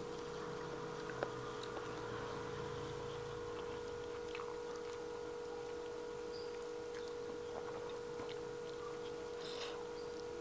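Quiet hand-eating sounds: faint chewing and scattered small clicks of fingers and food on a plate, over a steady hum.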